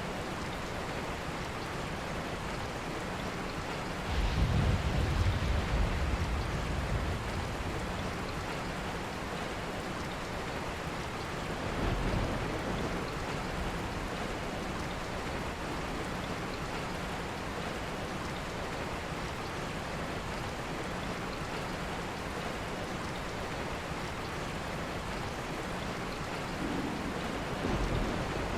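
Steady, even rain falling, with a low rumble of thunder about four seconds in that is the loudest part and lasts a few seconds; fainter rumbles come about twelve seconds in and near the end.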